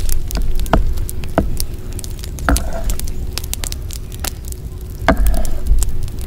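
Wood fire crackling in a fire pit, a dense scatter of fine pops and snaps over a low rumble, with four louder knocks spread through.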